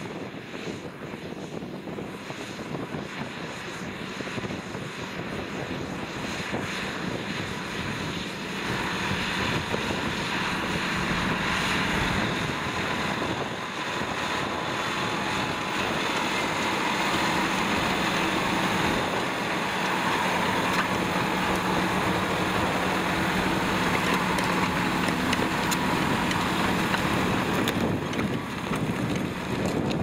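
John Deere 6215R tractor's six-cylinder diesel engine running steadily under load while pulling a Kuhn reversible plough through the soil. It grows louder over the first ten seconds or so as the tractor draws near, then holds steady.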